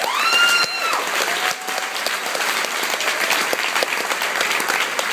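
Audience applauding a song's end, steady dense clapping, with a single high whooping cheer rising and held through the first second and a fainter shout soon after.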